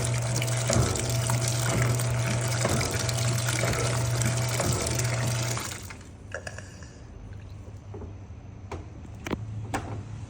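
Electrolux LPE16 washing machine filling, with water pouring into the drum over a steady low hum. Both stop abruptly a little over halfway through, as the fill shuts off at the extra-low automatic level. A few sharp clicks follow in the quieter stretch.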